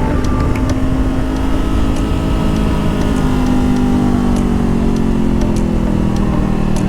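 Honda CBR500R parallel-twin engine pulling at moderate, fairly steady revs while riding. Its note rises slightly, then eases off toward the end, over a constant rush of wind.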